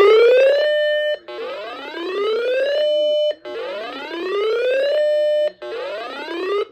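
Electronic whooping alarm tone from an emergency alert broadcast: a rising sweep that ends on a short held note and cuts off sharply, repeating about every two seconds.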